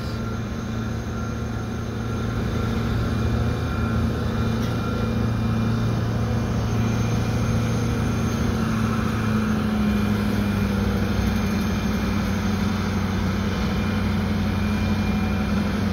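RailPower RP20BD switcher locomotive's diesel engines running with a steady low drone, growing slightly stronger about nine seconds in as the train begins to move.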